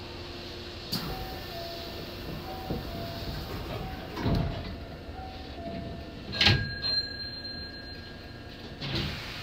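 Hankyu 7000 series train's sliding doors closing before departure: a two-note signal repeats, then the doors shut with a sharp knock about six and a half seconds in, and another knock follows near the end.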